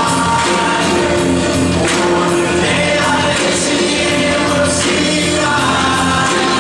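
Large mixed choir singing at full voice, with hand claps keeping a steady beat about twice a second.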